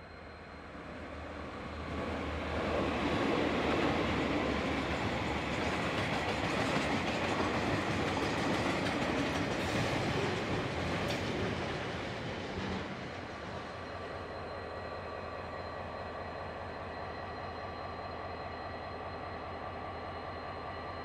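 Freight train of tank-container wagons passing at speed on the next track: a rumble of wheels on rail that builds over the first two seconds, with a couple of sharp clicks near the middle, and fades about thirteen seconds in. After that, a steady hum from a KiwiRail DFB-class diesel locomotive idling.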